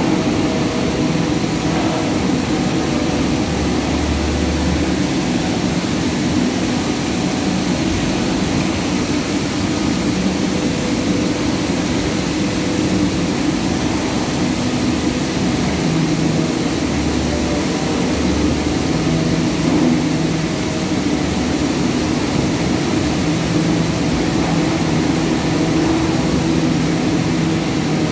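Steady, unbroken din of palm oil mill machinery running, with a low hum, where a large rotating drum thresher turns oil palm fruit bunches.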